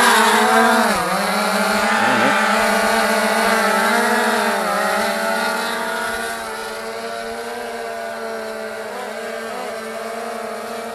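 DJI Phantom 3 quadcopter's motors and propellers buzzing at lift-off, the pitch dipping briefly about a second in. The steady buzz grows quieter after about six seconds as the drone flies away.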